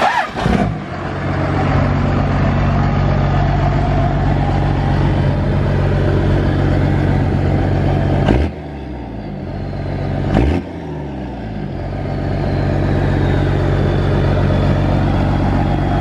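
First-generation Dodge Ram's Cummins turbo-diesel engine running steadily, with two sudden breaks about eight and ten and a half seconds in, after each of which the sound drops and then builds back up. A faint high whistle slowly falls in pitch through the second half.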